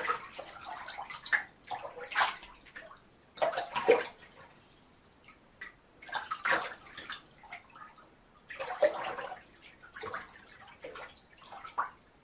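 Water sloshing and splashing in a bathtub as a person moves about in the bath, in irregular splashes every second or two with quieter dripping and trickling between.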